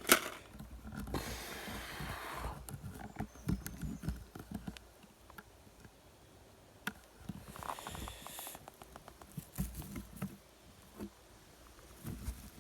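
Rustling, clicks and knocks of gear being handled and packed into a backpack. There is a sharp click at the start, a rustle soon after, and another rustle with a quick run of ticks about eight seconds in.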